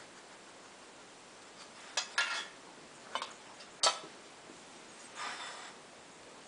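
Metal muffin tin clinking and knocking as a dog noses and nudges tennis balls in its cups to get at treats underneath: a few irregular sharp knocks, the sharpest about four seconds in, and a short rustle near the end.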